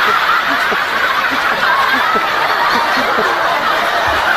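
A large audience laughing together, many voices overlapping in a steady wash of laughter.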